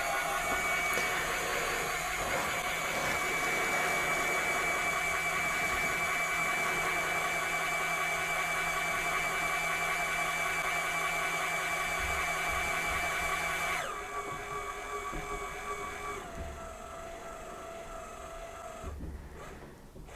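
Lyman Gen6 electronic powder dispenser's motor whirring steadily as it spins its powder tube to throw a 30-grain charge. About fourteen seconds in it drops to a quieter trickle as the charge nears its target weight, then stops shortly before the end.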